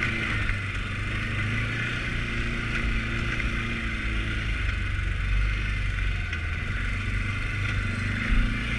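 Can-Am Outlander ATV engine running at a steady pace while the machine rides along a dirt trail.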